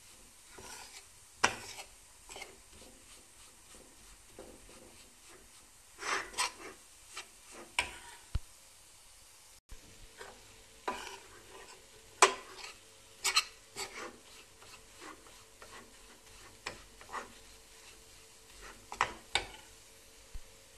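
Metal spoon scraping and knocking against a stainless steel pan at irregular intervals as flour and butter are stirred and toasted until they colour.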